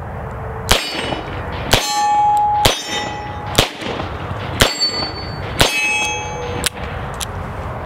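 Rock Island Armory AL 9.0 revolver firing 9mm rounds in a steady string of shots about a second apart, each shot followed by a short metallic ring.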